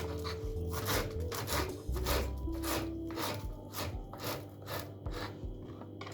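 Quick, evenly repeated scraping strokes, about two to three a second, over soft background music.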